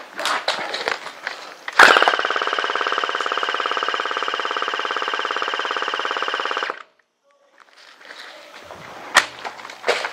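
Airsoft electric gun firing one long fully automatic burst of about five seconds: a fast, even rattle of the gearbox cycling that starts and stops abruptly. Scattered sharp clicks and knocks of handled gear come before and after it.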